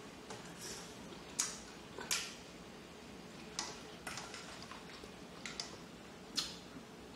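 Close-up eating of king crab legs: about ten sharp, irregularly spaced clicks and smacks, the loudest near one and a half, two and six seconds in.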